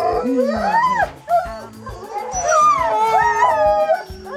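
Sled dog whining and howling in rising and falling glides, over background music with a steady beat.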